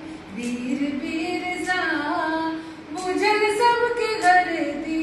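A woman singing unaccompanied, holding long notes that slide up and down in pitch, with a brief break for breath about three seconds in.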